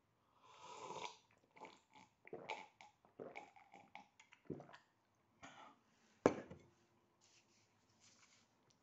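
A man sipping hot coffee from a mug: a string of short sips and mouth noises. About six seconds in comes a single sharp knock, the loudest sound, as the mug is set down on the table.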